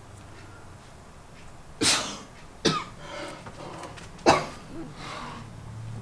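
A person coughing three times, in short separate coughs about a second apart.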